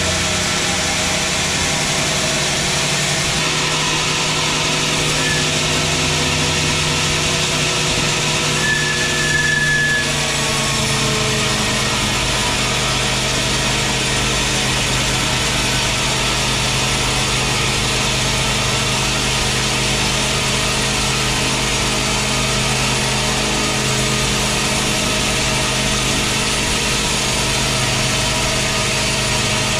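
Sawmill band saw running and ripping a large teak log lengthwise: a steady, loud mix of motor and blade noise. About ten seconds in, the pitch drops a little and the sound grows heavier.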